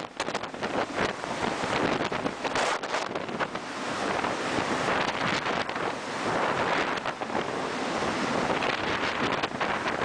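Storm wind buffeting the microphone over the rush of heavy, breaking seas, a dense noise that swells and gusts throughout.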